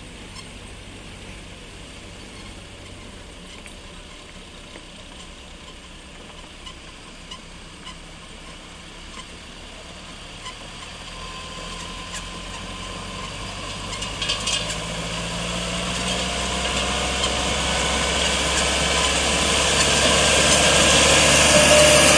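Tractor engine running as it drives up pulling a trailer of hay bales, growing steadily louder over the second half as it comes close. A brief rattling clatter comes about two-thirds of the way through.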